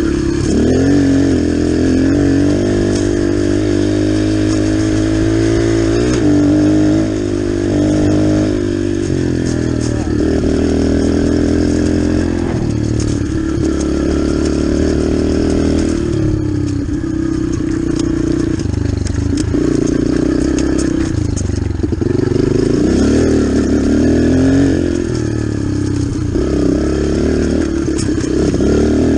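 Dirt bike engine under hard riding, revving up and dropping back again and again, its pitch climbing steadily and then falling off several times.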